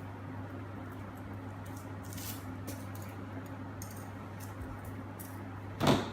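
Light rustling and crinkling from handling wrapped chocolate surprise eggs, over a steady low hum, with one sharp knock near the end.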